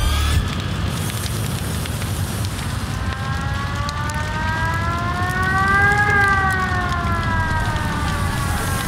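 Dramatic soundtrack sound effect: a deep rumble under a noisy roar, with a whining tone that rises from about three seconds in, peaks midway, and falls away again.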